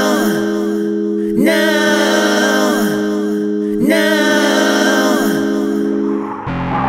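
Background music: a steady held chord under a wordless sung phrase that repeats about every two and a half seconds. Near the end the held chord drops away and a noisier, busier section begins.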